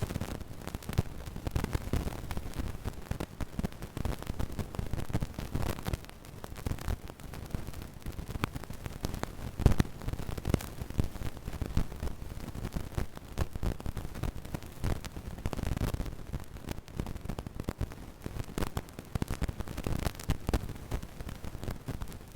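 Radio signal interference: constant crackling static with a low rumble underneath, dense irregular crackles throughout and one sharp louder pop a little under halfway through.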